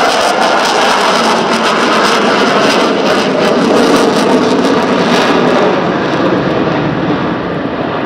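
Jet noise from a Dassault Rafale M's twin jet engines as the fighter passes: a loud, rough rush of sound with crackle through it. After about five and a half seconds the crackle and hiss fall away as the jet moves off.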